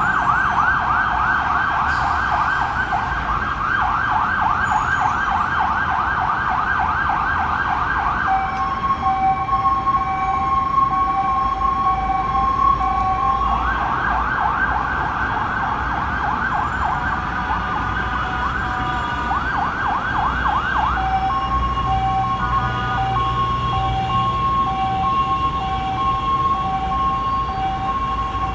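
Ambulance siren switching modes: a fast warbling yelp for the first eight seconds, then alternating high and low two-tone hi-lo notes, back to the yelp from about fourteen to twenty-one seconds, then hi-lo again. A low rumble of idling traffic runs underneath.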